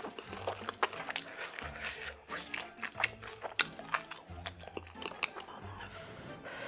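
Close-miked biting and chewing, with many sharp, irregular crunchy clicks, over background music with a steady bass line.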